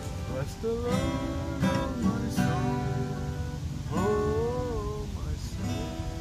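Acoustic guitar being strummed, with a man singing over it in drawn-out notes that slide up and down, around half a second in and again around four seconds in.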